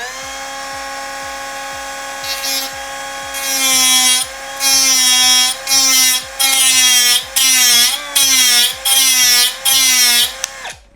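Angle grinder spins up and runs with a steady whine. From about three and a half seconds it bites into a keycap in about eight loud grinding passes, its pitch dipping under load each time, then shuts off and winds down near the end. The cut goes easily through the Dareu "ceramic" keycap, which the reviewer takes for lacquered plastic.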